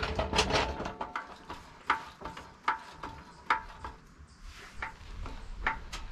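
Pro-Eagle floor jack being pumped by its long handle to lift a Jeep Gladiator. Each stroke gives a sharp metallic click with a short ring, at a little over one a second.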